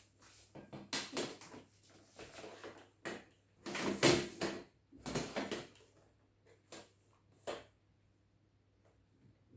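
An aluminium makeup case being set down, opened and rummaged through: irregular knocks and rustling, loudest about four seconds in, followed by two short sharp clicks less than a second apart.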